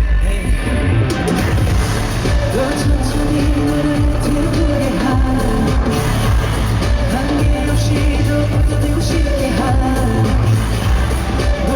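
Live pop song played through an arena sound system, with a heavy, steady bass beat under a male lead vocal singing.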